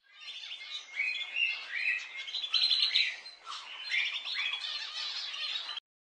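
Budgerigar chatter: a dense, continuous stream of overlapping chirps, warbles and scratchy squawks that cuts off abruptly just before the end.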